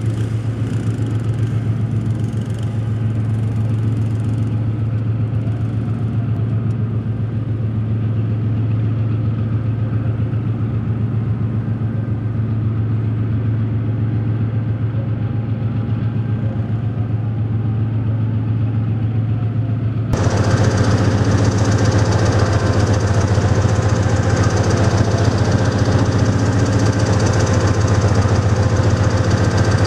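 Diesel engine of a Pakistan Railways Hitachi diesel-electric locomotive idling with a steady low hum. About two-thirds of the way in, the sound suddenly becomes louder and fuller.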